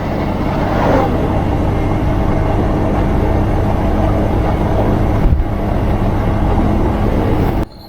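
Motorcycle on the move at steady road speed: a low engine drone under a rushing noise, which drops away abruptly near the end.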